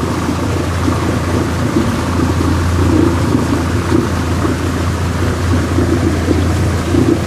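Motorized river raft's outboard engine running steadily under way, a loud constant low hum mixed with rushing noise; it cuts off suddenly at the end.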